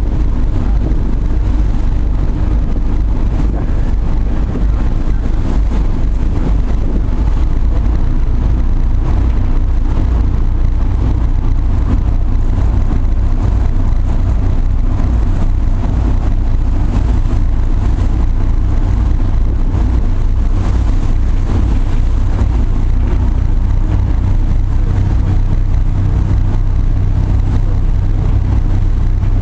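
Tugboat's diesel engines running steadily with a deep, even hum, heard from on deck over a broad wash of wind and water noise.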